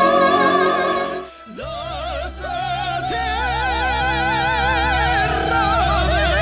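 Operatic singing from a soprano–tenor duo with wide vibrato over a backing accompaniment. The held notes break off about a second in, and after a brief pause the singing resumes over a steady low bass line.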